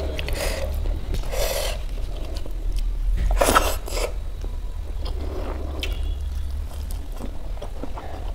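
Close-miked eating sounds: chewing a mouthful of fried rice and Manchurian, with fingers mixing the rice on a steel plate, in a string of short soft wet smacks and rustles, the loudest about halfway through.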